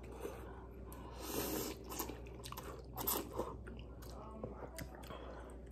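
Two people slurping and chewing thick spicy instant noodles, with a loud slurp about a second and a half in, another sharp one about 3 s in, and small wet mouth clicks in between.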